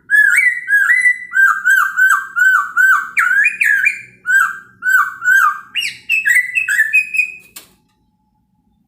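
Poksay Hongkong laughingthrush singing a run of loud, repeated slurred whistles, about two a second, the phrase stepping up in pitch twice. It stops with a sharp click shortly before the end.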